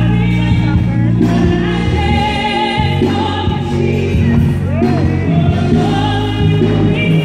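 A woman singing a gospel ballad solo into a microphone over instrumental accompaniment, with sustained, bending notes.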